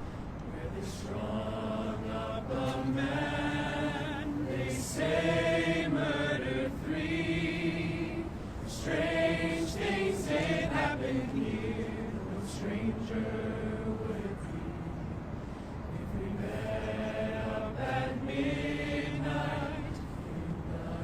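Crowd of many voices chanting in unison, in phrases of a couple of seconds with short pauses between them.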